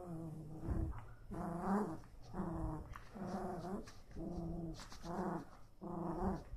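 Small dog making a run of about seven short, pitched moaning vocalizations, roughly one a second, the grumbling 'talking' of a dog that is fussing about something.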